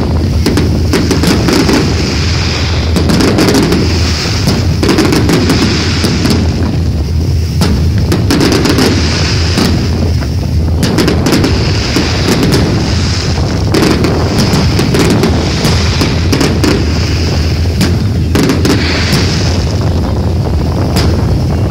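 Fireworks display: a continuous barrage of shells and comets being launched and bursting, many bangs coming in quick succession and overlapping.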